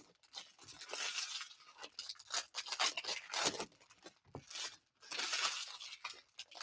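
Foil wrappers of Panini Mosaic basketball card packs crinkling and tearing as they are opened, with cards handled, in irregular rustling spells broken by short pauses.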